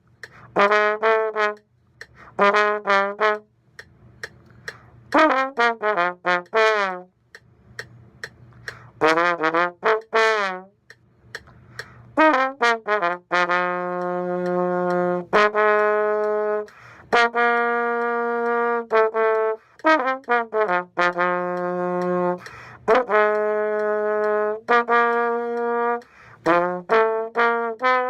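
A brass instrument playing a tune. It starts with phrases of short, detached notes separated by pauses, then moves to longer held notes from about halfway.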